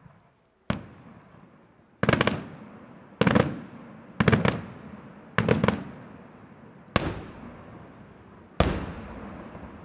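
Aerial firework shells bursting in a steady sequence: seven loud bangs about one to one and a half seconds apart, several of them double or triple cracks, each trailing off in an echo.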